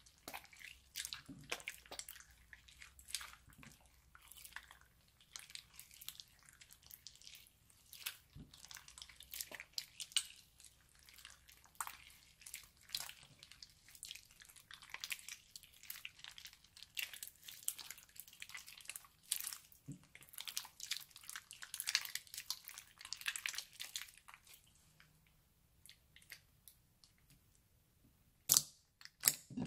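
Wet, sticky slime being squeezed and stretched by hand: an irregular run of squelches and small crackling pops. It thins out toward the end, then two louder pops.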